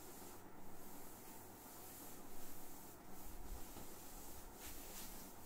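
Whiteboard duster rubbing across a whiteboard in repeated wiping strokes, a soft scuffing swish that rises and falls with each stroke.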